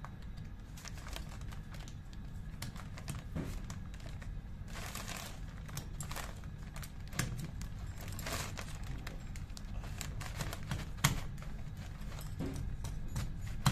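Light metallic clicks and short scrapes of mechanical seal parts being handled and worked loose by hand, with a sharper click near the end, over a steady low hum.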